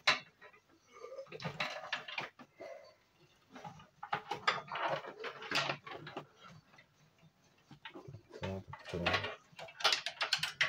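Irregular clicks, rattles and rustling of cables and plastic parts being handled and pulled inside an open desktop computer case.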